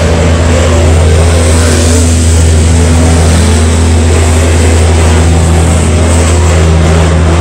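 A field of topless dirt late model race cars running hard around the track, their V8 engines blending into a loud, steady drone.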